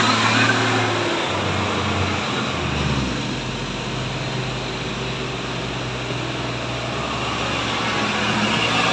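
Diesel engine of a heavily loaded Hino truck labouring up a steep slope. Its low note steps down in pitch over the first three seconds, then holds steady, and the sound grows louder in the last few seconds as the truck draws near.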